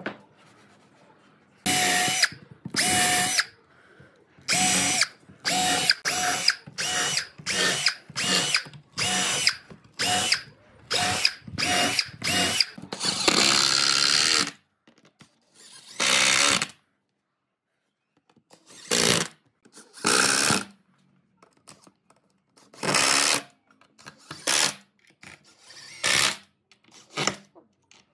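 A power tool's electric motor run in more than twenty short bursts of about half a second to a second each, with a steady whine in each burst. A rapid string of bursts in the first half ends in one longer run, and more bursts follow with longer pauses between them.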